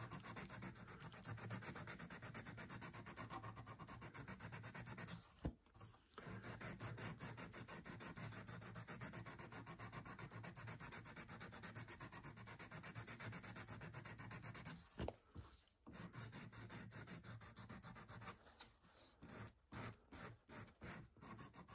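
Faint hand-sanding of a brass hammer head with fine abrasive paper: quick back-and-forth rubbing strokes, with a few brief pauses, working scratches out of the brass.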